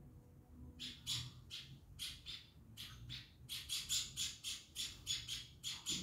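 Eurasian tree sparrow giving short, high-pitched chirps while being hand-fed. The chirps start about a second in, a few at a time, then quicken to a steady run of about four a second.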